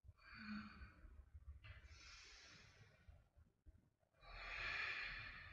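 A woman breathing audibly while holding a deep yoga lunge: three slow, drawn-out breaths, the last one the loudest.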